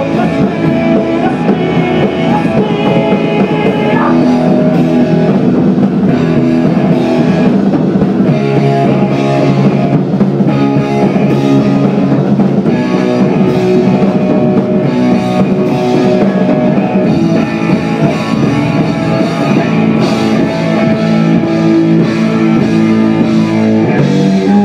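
Live rock band playing loud and continuous: electric guitar with a drum kit.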